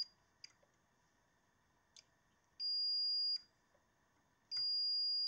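DT9205A digital multimeter's continuity buzzer giving steady high-pitched beeps. One beep cuts off at the very start, a second lasting under a second comes about two and a half seconds in, and a third starts near the end. Faint clicks of the test probes touching pins fall between them. Each beep confirms continuity between a power pin of the floppy disk connector and its supply rail.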